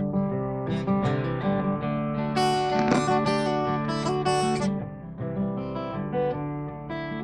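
Acoustic guitar strummed and picked in an instrumental passage of a folk-rock song, with no singing.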